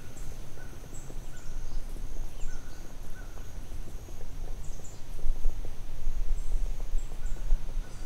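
Forest ambience: small birds giving short, high chirps again and again over a low rumble that grows louder about five seconds in.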